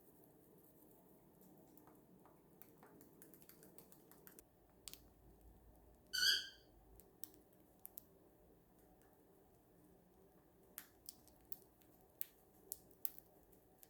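Cockatiel at a treat: faint scattered clicks and cracks, bunched near the end, with one short chirp about six seconds in, the loudest sound.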